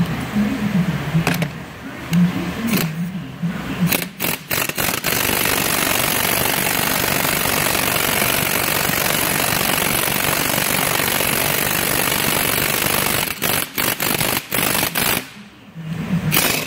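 Impact wrench hammering on a bushing press screw, pushing the original bushing out of a 1972 Datsun 510 lower control arm. It comes in short bursts at first, then runs steadily for about eight seconds, then a few short bursts near the end.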